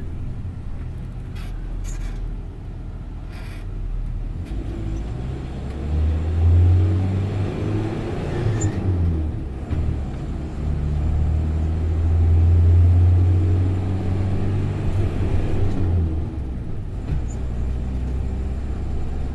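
Bus engine and tyre noise heard from inside the passenger cabin while driving on a highway: a steady low drone that swells louder twice, at about six seconds in and again in the middle to later part.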